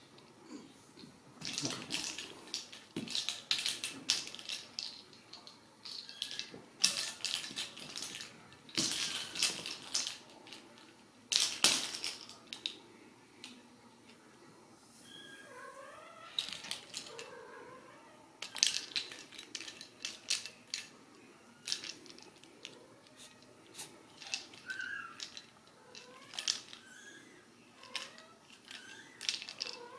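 Ragdoll kittens playing with a plastic ball toy on a string on a rug: repeated bursts of scratching, rustling and clicking as they pounce and bat it, with a few faint meows.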